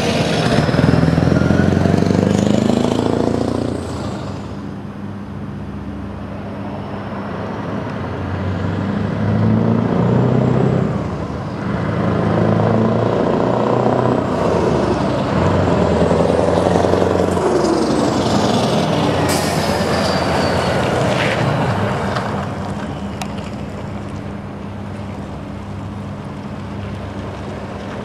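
Scania R620 truck's V8 diesel engine running as the truck drives past, fades away, then comes back closer, its pitch rising and falling as it accelerates and goes by, before fading again near the end.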